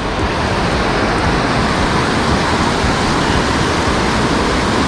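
Steady rushing noise with an unsteady low rumble: wind buffeting the microphone.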